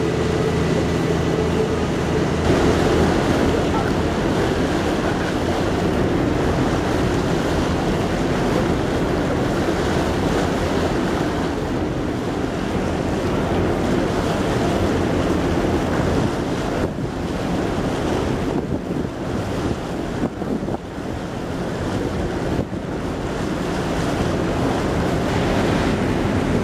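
Wind buffeting the microphone and water rushing and splashing around a small boat under way on choppy harbour water, with the boat's engine droning low underneath, clearest in the first couple of seconds.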